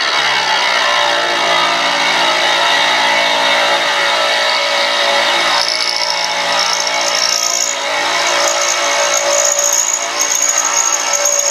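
A 3/4-inch end mill in a milling machine cutting a slot into a cast bracket: a steady cutting and spindle noise. A high whine joins about halfway through and holds.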